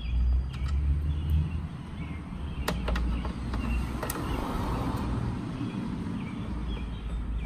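Screwdriver working screws out of a plastic Subaru BRZ headlight housing, giving a few light clicks, over a low rumble.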